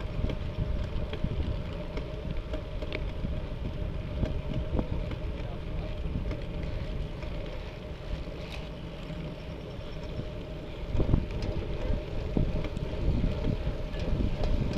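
Wind buffeting the microphone of a moving cyclist, a dense low rumble with a few faint clicks, gustier and louder from about eleven seconds in.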